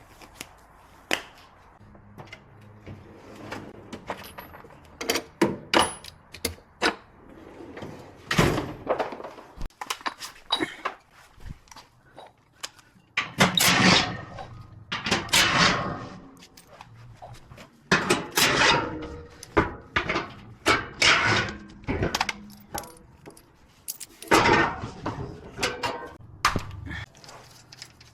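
Tools and parts being handled: irregular sharp knocks, clicks and clanks, with a few longer rattling stretches of a second or more.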